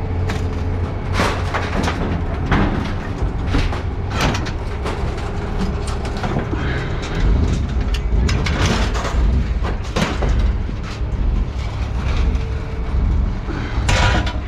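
Scrap metal clanking and banging at irregular intervals as pieces are thrown out of a pickup truck bed onto a scrap pile, over a steady low engine hum.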